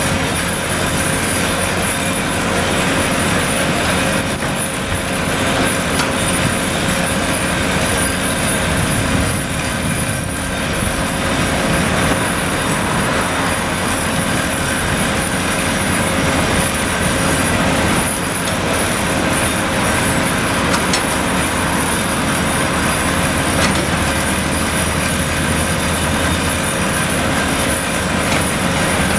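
Daewoo 255 LC-V crawler excavator's diesel engine running under load, its hydraulics working steadily as it digs soil and loads it into a dump truck, with a few short knocks from the bucket and dirt.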